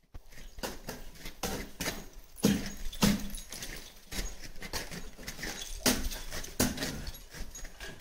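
Irregular crunching impacts on ice, some much louder than the rest, with the loudest a few seconds in and again near the end.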